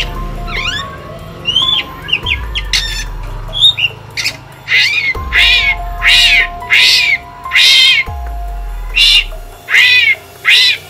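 Drongo (srigunting) calling: quick chirps and short whistles, then from about four seconds in a run of loud, harsh calls, each about half a second long and falling in pitch at the end.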